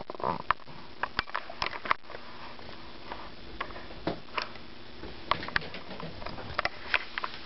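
A small dog sniffing close by near the start, then scattered light taps and clicks at uneven intervals as the dog and a cat move about the room.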